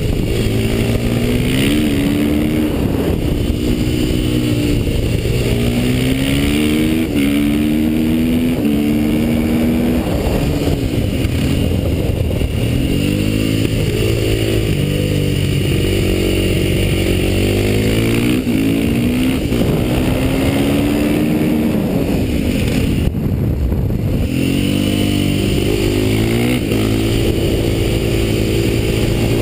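KTM motorcycle engine revving hard, its pitch climbing repeatedly and breaking off at each gear change, then falling away as the bike slows for corners.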